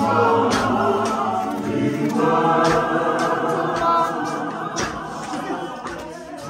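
A congregation singing a hymn together with no instruments, many voices at once, with a few short sharp hits among the singing.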